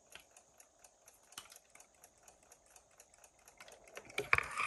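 Vintage Westclox wind-up alarm clock ticking in a quick, even beat, several ticks a second: the movement is running. A brief louder noise comes near the end.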